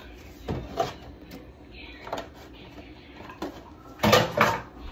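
Kitchen handling noises: light clicks and knocks as a plastic gallon milk jug and measuring cups are handled over the counter, then two louder knocks about four seconds in.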